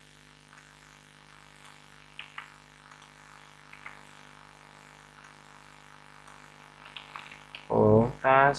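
Faint, scattered computer keyboard and mouse clicks while a line of code is selected, copied and pasted, over a steady electrical hum. Near the end a man says one word.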